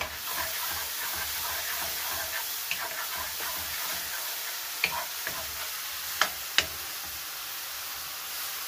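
Mushroom pieces sizzling in hot oil in a nonstick pan, steadily stirred with a wooden spatula, while they are just starting to give off their juice. A few sharp taps of the spatula on the pan stand out, one about five seconds in and two close together a little later.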